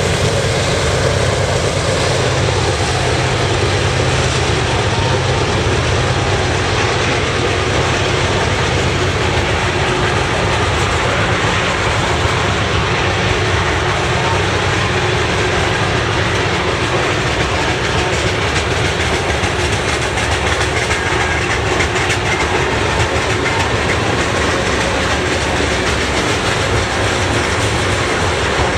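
CN freight train rolling past: steady, loud wheel-on-rail noise from the passing train.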